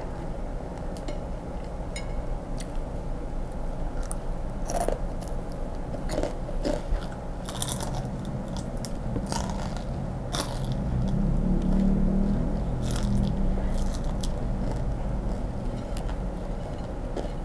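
Chewing and biting into crispy deep-fried grasshoppers, with irregular sharp crunches and crackles. A low hum rises about two-thirds of the way through.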